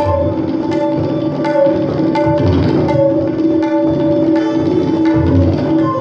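Tabla played in a dense run of strokes, with recurring deep, booming bass-drum (bayan) strokes. Beneath them a sarangi holds a sustained melodic line.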